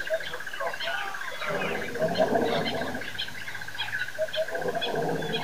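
Lions roaring, with a stretch of low roaring and grunting about halfway through. Birds chirp throughout over a steady high buzz.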